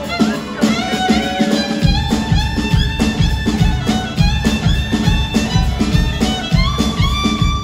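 Live band playing: a fiddle leads with sliding notes over drum kit and upright bass. A steady low beat comes in about two seconds in.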